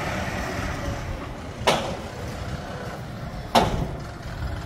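Muck shredder machine running with a steady low hum, and a sharp knock about every two seconds, twice here.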